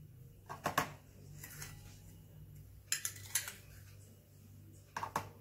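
A spoon clinking against the blender jar in several short knocks, some in quick pairs, as spoonfuls of powdered milk are added to the mixture.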